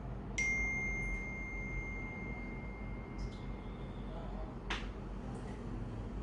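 A single sudden ping that rings on as a steady high tone and fades over about three seconds, followed by one sharp click.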